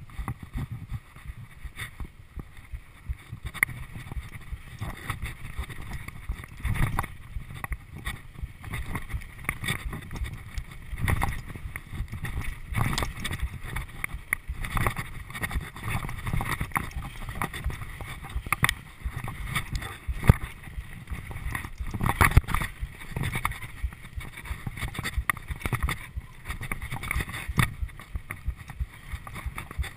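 Mountain bike riding fast down a dirt singletrack: irregular clatter of the bike's chain and frame rattling over bumps, over tyre noise on dirt and a low wind rumble on the camera microphone.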